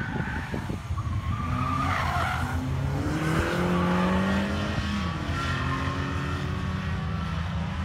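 Ford Sierra's 2.0 DOHC four-cylinder engine working hard through a cone slalom. Its pitch climbs for a few seconds, drops sharply about five seconds in, then holds steady. Tyres squeal briefly about two seconds in.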